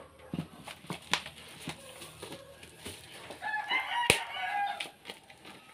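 A rooster crowing once, from about three and a half seconds in, over the crackle and clicks of a black plastic-wrapped parcel being handled and cut open by hand. A sharp click about four seconds in is the loudest sound.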